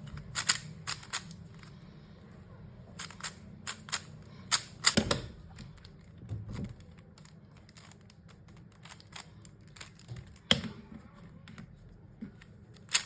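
Magnetic 3x3 speedcube being turned in quick bursts of face turns, its layers snapping into place with sharp plastic clicks. This is the turning for a checkerboard pattern, with pauses between groups of turns.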